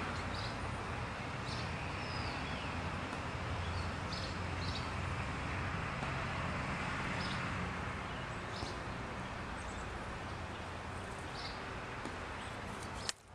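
Steady outdoor background rumble with brief, faint high bird chips scattered through it, about one every second or two; the sound drops out abruptly at the very end.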